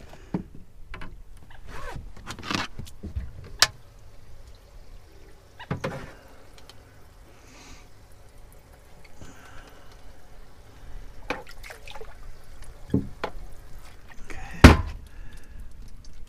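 Water sloshing as a dip net is swept through a boat's bait well to catch a live shiner, between a series of knocks and thunks on the fiberglass deck and hatches. The loudest thunk comes near the end.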